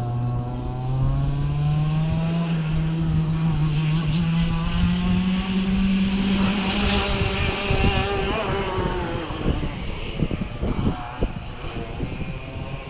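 Race car engine pulling hard down the straight, its pitch climbing steadily for about seven seconds as it accelerates, then the car passes and the sound falls away into a rougher, fading rumble.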